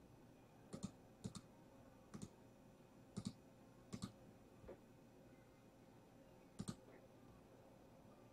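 Scattered sharp clicks at a computer, like keys and a mouse button, several coming in quick pairs, over near-silent room tone.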